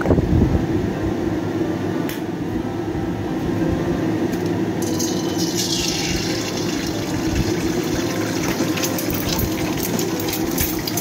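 Egg sizzling and crackling in hot black sesame oil in a wok. The hiss starts suddenly about five seconds in as the egg drops into the oil and keeps going. Under it is a steady background hum, with one sharp tap about two seconds in.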